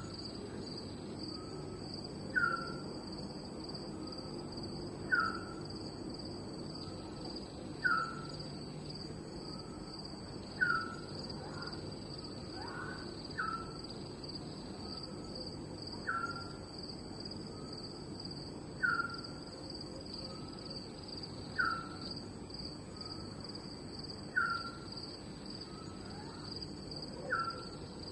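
Night ambience: a steady high chirring of crickets, with a short falling call from an animal repeated at an even pace, about every three seconds, each call trailed by a fainter short note.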